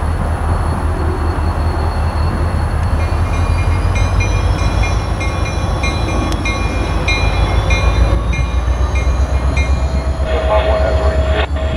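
CSX diesel-electric locomotive running with a deep steady engine rumble as it moves slowly ahead of a string of tank cars. From about three seconds in its bell rings steadily for several seconds, and a steady drone joins near the end.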